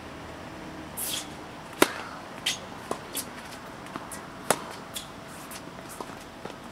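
Tennis ball struck by racket strings and bouncing on a hard court during a rally. The loudest pops come about two seconds in and again about four and a half seconds in, with fainter hits and bounces between them and after.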